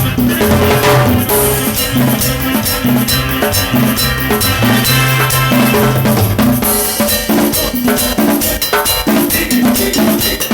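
Latin dance music by a band: drum kit with snare and bass drum, hand percussion and a repeating bass line, at a steady beat.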